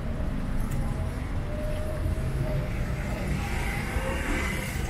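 Town street ambience: a steady low rumble of traffic, with faint distant voices.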